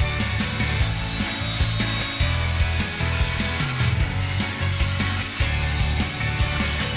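Handheld angle grinder grinding the steel of a chainsaw guide bar, a steady rasping hiss of the disc on the metal. Background music with a pulsing bass line plays underneath.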